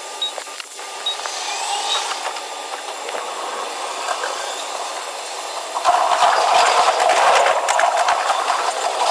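Train running, heard from inside the driver's cab: a steady rushing noise that jumps louder about six seconds in as an oncoming train passes alongside.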